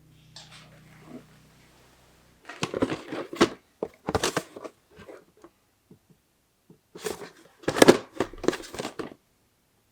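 Bike parts and tools being handled at the workbench: two clusters of sharp clicks, knocks and rustles, the first about two and a half seconds in and the second about seven seconds in, over a faint low hum that stops early on.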